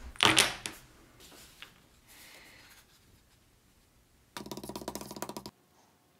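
A small wooden block clatters down onto a cutting mat, followed by light handling noises. About four seconds in, a rapid mechanical rattle of clicks with a steady hum runs for about a second and cuts off suddenly.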